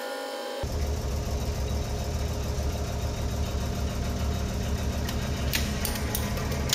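A hydraulic press's pump motor runs with a steady low hum. From about five and a half seconds in, sharp cracks and clicks come through as the ram bears down on a Dell computer mouse and its plastic shell starts to break.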